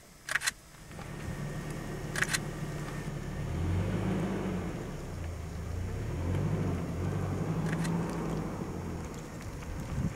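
A single-lens reflex camera's shutter clicks three times: near the start, about two seconds in, and near eight seconds. Under it, the car's engine idles with a low rumble.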